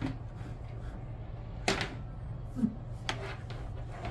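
A table lamp being handled, giving a few sharp clicks and knocks, the loudest about halfway through, over a steady low hum.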